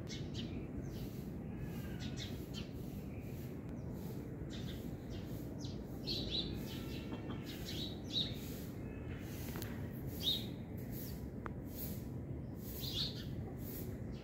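Small birds chirping repeatedly in short high calls over a steady low background noise. A few chirps stand out louder.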